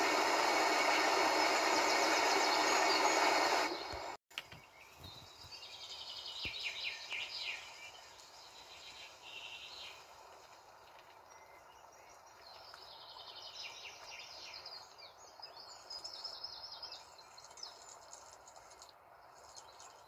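Steady rushing of a waterfall that cuts off abruptly about four seconds in, followed by quieter natural ambience with repeated short bursts of high bird chirping.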